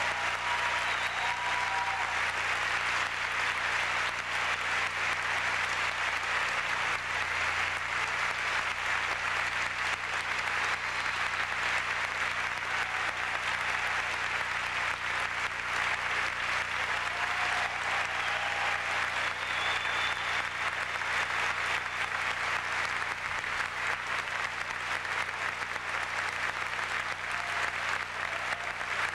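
Large concert audience applauding steadily in a long, unbroken ovation.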